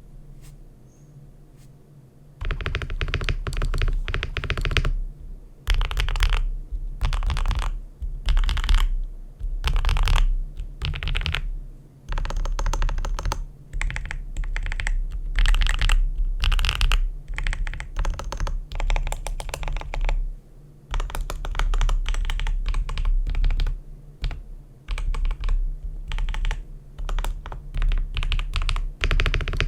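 Typing on a GMK67 mechanical keyboard with lubed and filmed Matcha Feker switches and GMK-style clone keycaps: runs of rapid keystrokes with short pauses between them. The typing starts about two seconds in.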